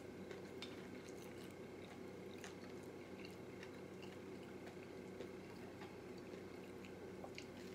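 Faint chewing of fried chicken, with small mouth and tearing clicks as a wing is pulled apart by hand, over a steady low hum.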